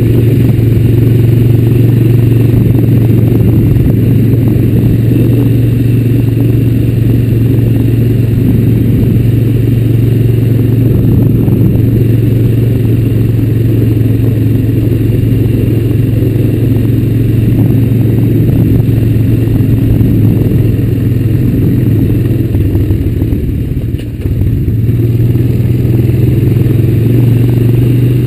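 Honda Recon 250 ATV's single-cylinder four-stroke engine running steadily under throttle at trail speed. About four-fifths of the way through it eases off briefly, then picks up again.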